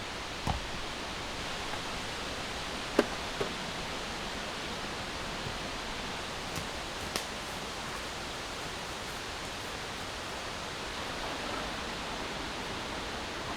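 Strong wind rushing steadily through the forest. A few sharp knocks cut through it, the loudest about three seconds in.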